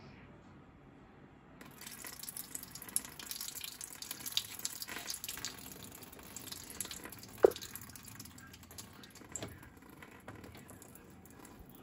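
Water running, starting about a second and a half in, with a few light knocks and one sharper clunk about seven and a half seconds in.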